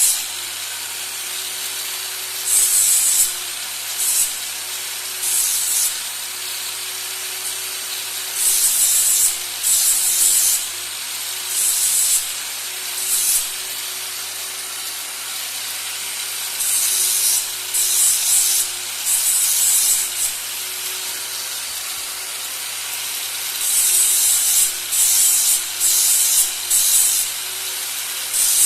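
Irregular short abrasive strokes, each about half a second or less, coming in loose clusters, over a steady low hum.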